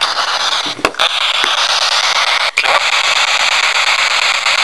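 P-SB7 spirit box sweeping through radio stations, heard through an external speaker: a loud, steady hiss of static broken by a few sharp clicks, the first about a second in.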